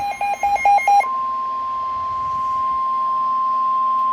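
Rapid electronic alert beeps, about seven a second, stop about a second in. A steady single-pitch NOAA Weather Radio 1050 Hz warning alarm tone then sounds without a break, marking the start of a weather warning broadcast.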